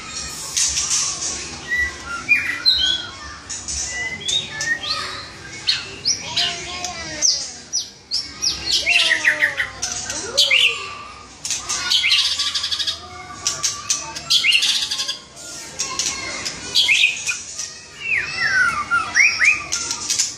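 White-rumped shama singing continuously: a varied run of rich whistled phrases that slide up and down, mixed with quick harsh rattling notes.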